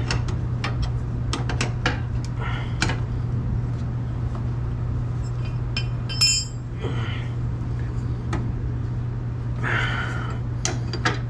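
Steel wrenches and a ratchet clinking and clicking against metal while a new fuel filter's threaded line fittings are snugged down. Scattered sharp clicks, with one bright ringing clink about six seconds in.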